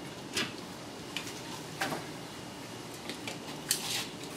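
Small handling noises: a few scattered light clicks and brief rustles, with the longest rustle near the end.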